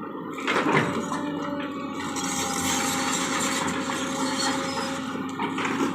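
Backhoe loader working: a steady engine hum with bursts of rough, scraping noise about half a second in and near the end.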